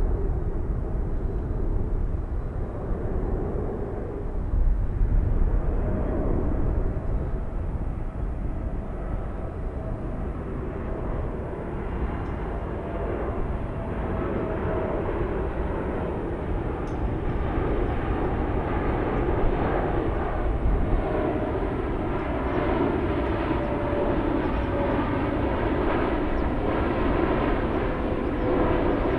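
Boeing 747-8F freighter's GEnx turbofan engines running: a steady jet rumble with a faint tone slowly falling in pitch, the noise growing fuller in the second half.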